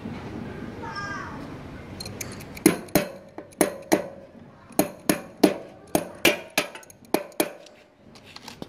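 About a dozen sharp metallic taps, two or three a second, starting a few seconds in: pliers knocking a wire staple into a wooden board to hold down a motor's power cables.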